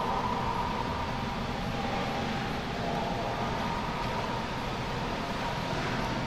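Steady background room noise: a low rumble with a hiss above it and no distinct event.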